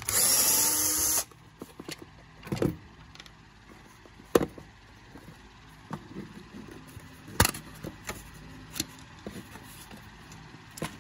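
Cordless drill/driver running for about a second, its motor whining as it backs a screw out of a vacuum's cord box. This is followed by the box being handled and opened: scattered clicks and knocks of plastic and loose screws, with one sharp knock about four seconds in.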